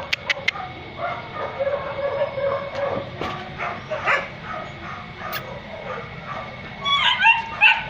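Several shelter dogs barking and yipping from their kennels, with some whimpering. The yelps get louder and higher about seven seconds in.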